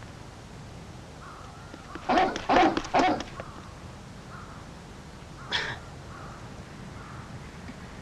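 An animal calling: a quick run of four or so harsh calls about two seconds in, and one more a few seconds later.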